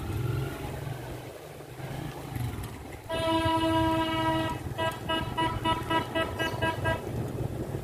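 A vehicle horn sounding: one long steady toot for about a second and a half, then a run of short rapid beeps at the same pitch, about four a second. A low motor rumble runs under the first couple of seconds.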